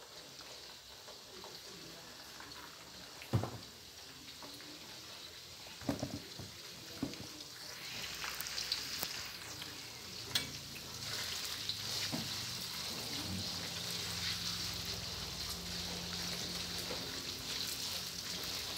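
Sweetened dried fish slices frying in hot oil in a stainless steel wok, sizzling, while a metal spatula clicks against the wok several times. The sizzle grows louder about eight seconds in and then holds steady.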